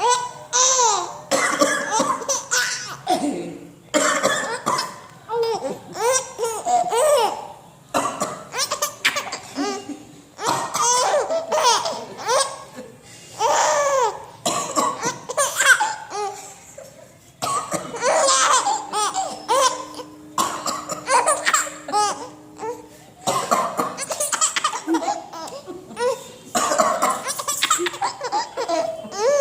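A baby laughing in repeated bursts of giggles and belly laughs, set off by someone coughing, with the coughs mixed in among the laughs.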